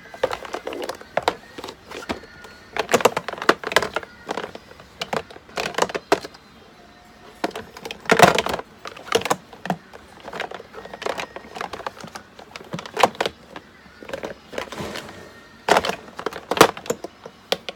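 Makeup bottles and tubes knocking and clinking against each other and the drawer as they are picked up and set down, in irregular knocks with a few louder ones.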